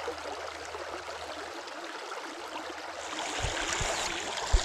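Shallow creek water running over stones in a riffle: a steady rush. It gets a little louder near the end, where a few low thumps sound.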